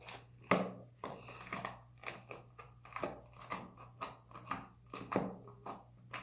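Slime being squeezed and worked in the hands, making repeated wet squelches and sticky clicking pops, roughly two a second.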